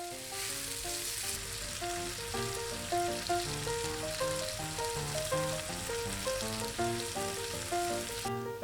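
Chopped green onions sizzling in oil in a frying pan on low heat, making green onion infused oil; the sizzling stops shortly before the end. Background music with light, evenly paced notes plays underneath.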